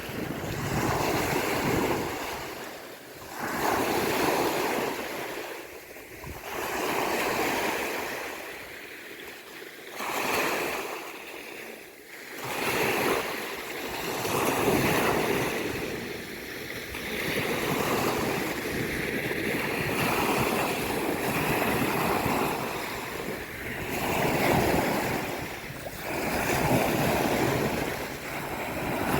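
Sea waves washing onto a beach, the surf swelling and falling away every two to three seconds.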